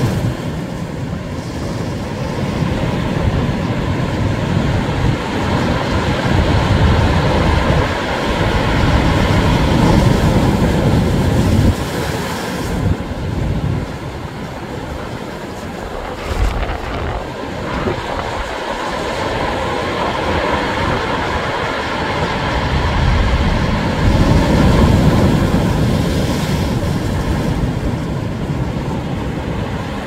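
Heavy surf breaking against concrete tetrapod breakwater blocks: a continuous low rumbling roar of waves and spray. It swells louder about a third of the way in and again near the end.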